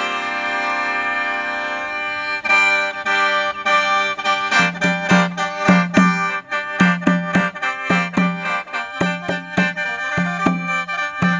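Khaen, the bamboo free-reed mouth organ of Isan and Laos, being played. It holds a full chord for about two seconds, then breaks into a quick rhythmic melody over a pulsing low drone.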